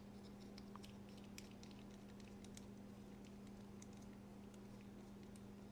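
Faint, scattered small clicks and ticks of a driver bit and tiny screws as a folding knife's screws are put back in, over a steady low electrical hum.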